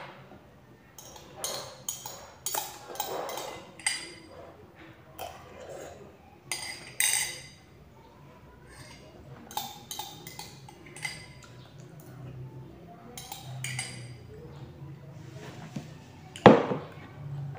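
A metal spoon clinking against a drinking glass: a scatter of short chinks with a faint ring, with a sharper knock about sixteen and a half seconds in.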